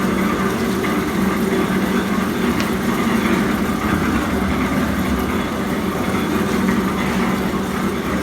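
Styrofoam melting machine running steadily, its motor giving an even hum.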